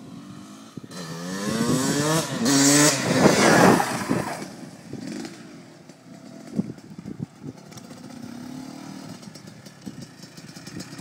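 Dirt bike engine, with a freshly rebuilt top end, revving hard. Its pitch climbs in several rising sweeps and is loudest about two to four seconds in, then it drops back to a quieter, more distant running with a brief swell near the end.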